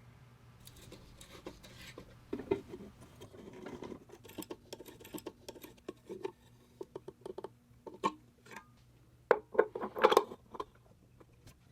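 Small parts of an oil lamp being handled and fitted together: irregular clicks, taps and scrapes, with a cluster of louder clinks about nine to ten seconds in.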